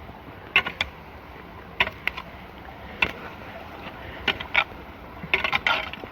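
Water rushing steadily into a storm drain, broken by a series of short, sharp scrapes and knocks as clogging debris is pulled out of the road.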